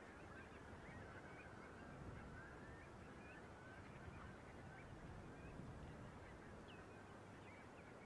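A faint, distant flock of birds calling continuously, many short overlapping calls, over a low rumble of wind.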